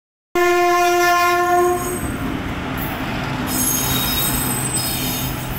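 Indian Railways electric locomotive sounding one long steady horn blast, lasting about a second and a half, then the locomotive and its passenger coaches rumbling past on the rails.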